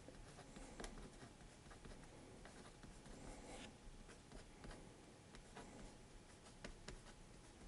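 0.9 mm mechanical pencil with HB graphite lead writing the alphabet on paper: faint, quiet scratching of pencil strokes, with a few light taps.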